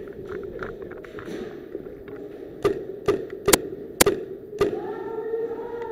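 WE G18C gas-blowback airsoft pistol firing five single shots about half a second apart, each a sharp crack. Near the end a siren starts up, rising and then holding its pitch, sounding the end of the game.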